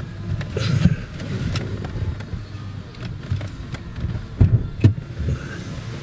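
A car engine idling steadily, with a knock just under a second in and two sharp knocks about four and a half seconds in as the hood release is pulled and the hood latch pops.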